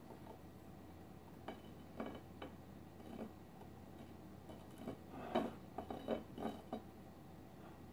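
Spatula scraping and clinking against the cake plate while spreading frosting down the sides of a cake: a series of short, soft scrapes and clinks, busiest about five to seven seconds in.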